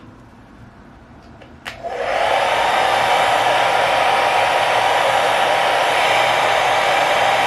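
A click, then a hair dryer switches on about two seconds in and blows steadily.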